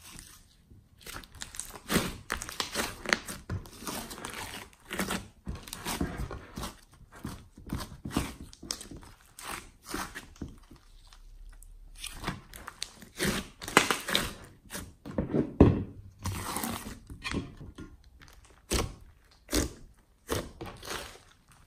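Hands squeezing, poking and stretching a large mass of slime mixed with clay, making irregular wet squishes and sharp clicks, some much louder than others.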